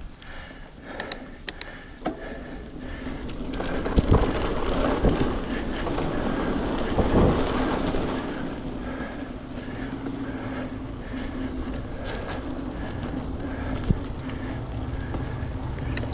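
Mountain bike rolling along a dirt trail: tyre noise, with knocks and rattles from the bike over bumps and wind on the microphone. The noise builds as speed picks up about four seconds in, and a steady hum runs under it from about halfway.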